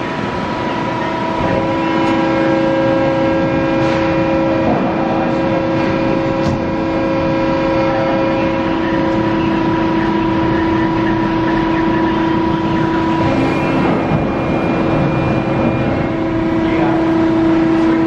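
Hydraulic power unit of an IMABE MP100 two-ram non-ferrous baler running under load with a steady pump hum and whine, rising about two seconds in as the ram strokes across the empty bale chamber and back. A couple of knocks come along the way.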